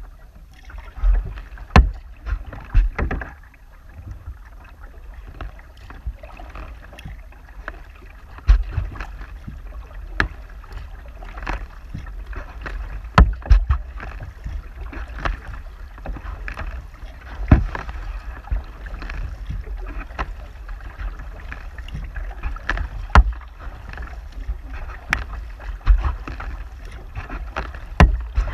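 Kayak being paddled across calm water: paddle blades dipping and pulling with dripping splashes, water rushing along the hull, and sharp knocks every few seconds at irregular intervals where the paddle strikes the kayak.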